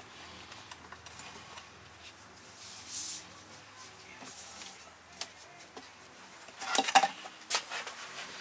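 Light clicks and rustling from wire being worked through the drain hole of a stainless steel sink, then a short cluster of metallic knocks and rattles about seven seconds in as the sink is picked up.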